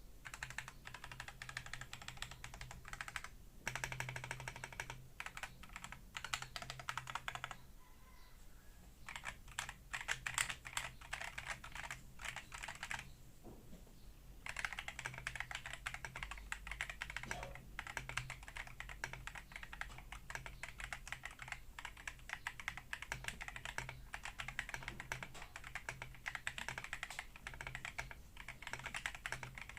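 Akko PC75B Plus mechanical keyboard with PBT keycaps being typed on steadily in a sound test. The typing comes in runs of fast key clicks, broken by short pauses about 3 s, 8 s and 14 s in.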